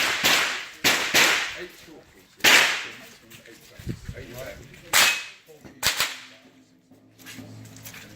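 Six sharp cracks of .22 rimfire rifle shots fired at uneven intervals, three in the first second and a half, then three more spaced out over the next few seconds.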